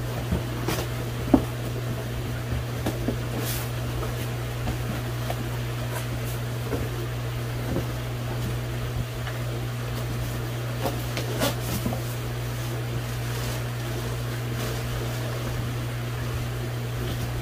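Cardboard shipping box and styrofoam fish cooler being opened and handled: scattered knocks, taps and scrapes, the loudest a sharp knock about a second in and a small cluster near the two-thirds mark, over a steady low hum.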